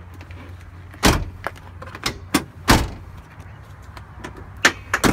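Several sharp knocks and thuds, the two loudest about a second in and just before the middle, with smaller ones between and near the end: the truck's extended-cab doors being handled and shut.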